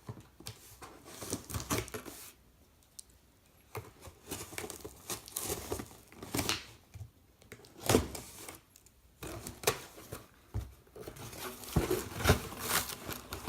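A cardboard shipping box being opened by hand: tape and packaging tearing, plastic wrapping crinkling and rustling in irregular spurts, with a few sharp knocks.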